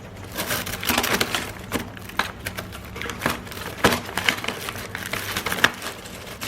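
Irregular clicks and knocks of a bird cage being handled while a myna inside is caught by hand.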